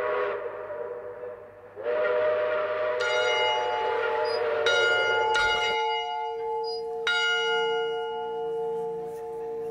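A diesel locomotive's air horn sounds two long blasts, the second cutting off suddenly near the middle. Overlapping it, a tower bell is struck three times from about three seconds in, each strike ringing on and slowly fading.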